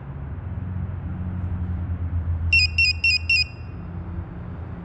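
Mountain High electronic oxygen delivery unit sounding its alarm: a quick run of about five short, high electronic beeps about two and a half seconds in, over a low rumble.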